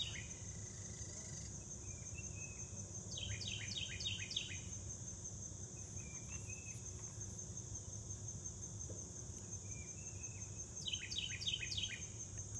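Steady high-pitched insect trill, with a bird twice singing a quick run of five or six falling notes, about three seconds in and again near the end, and a few short chirps in between.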